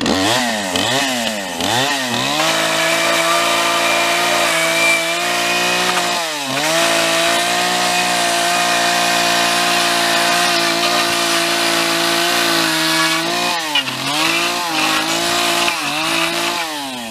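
Chainsaw blipped up a few times, then held at full throttle as it cuts boards in half, its engine speed dipping briefly about six seconds in and again near fourteen seconds, before it drops off near the end.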